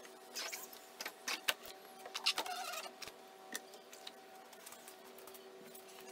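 A small rubber squeegee wiped over the wet paint of a 1984 Corvette to dry it, scraping and squeaking in short strokes, loudest a little over two seconds in. A steady low hum runs underneath.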